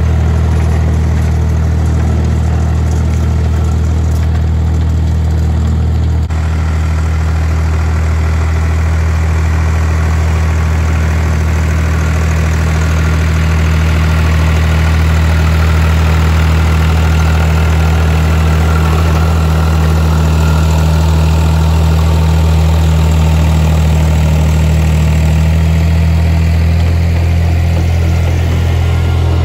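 Massey Ferguson 245 tractor engine running at a steady speed while it drives a rear rotary tiller through the garden soil.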